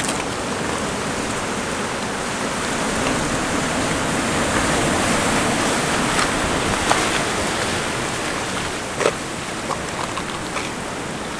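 Sea surf washing and foaming over rocks: a steady rushing hiss that swells a little in the middle, with a few sharp knocks, the loudest about nine seconds in.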